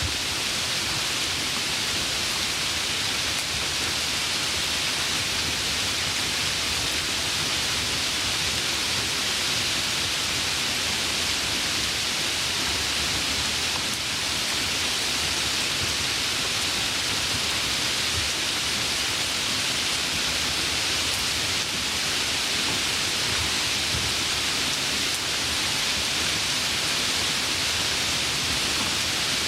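Steady, even rain, a constant hiss with no separate drops or thunder standing out.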